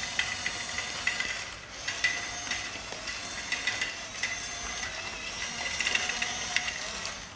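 Small electric motors of a toy remote-control excavator whirring through plastic gears, with rapid clicking, as the toy is driven and turned; the whirring stops near the end.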